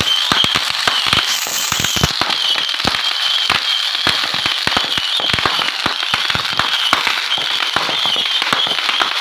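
Fireworks going off in a dense, continuous volley of rapid pops and cracks, with a brief hiss a little over a second in.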